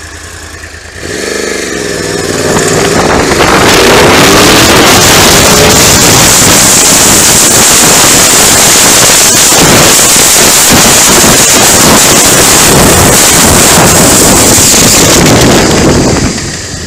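2010 Yamaha R1's crossplane inline-four engine pulling away in first gear, its pitch rising over the first few seconds. It then turns into a loud, steady rush as speed builds, and this drops away near the end.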